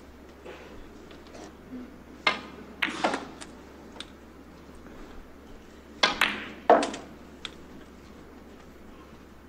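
Snooker balls clicking: the cue tip strikes the cue ball and the balls knock against each other, in short sharp clicks. They come in two clusters, one around two to three seconds in and one around six to seven seconds in.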